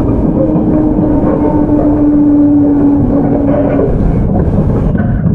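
Running sound inside a JR 211-series electric multiple unit's motor car, heard as a steady rumble of wheels on rail. Over it is a single whine from the MT61 traction motors and gearing, falling slowly in pitch as the train loses speed, and it fades out about four seconds in.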